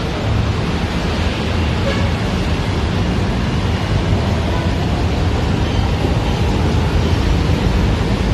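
Steady roar of city road traffic mixed with wind on the phone's microphone.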